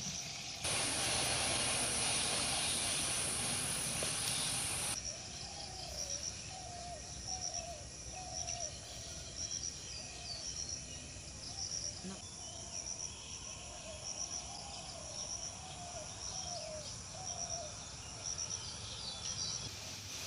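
Outdoor rural ambience: a bird calling over and over in short phrases, with insects trilling high and steady behind it. It opens with a few seconds of loud, even hiss that stops suddenly.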